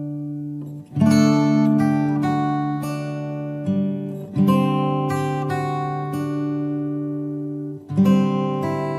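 Slow acoustic guitar music: strummed chords that ring and fade, with a new chord struck about a second in, another about halfway through, and another near the end.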